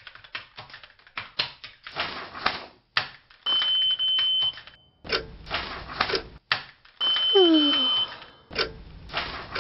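Rapid clicking of laptop keyboard typing, with a long high electronic beep about three and a half seconds in as a magnetic card is swiped through a card reader, and a second beep about seven seconds in with a falling tone under it.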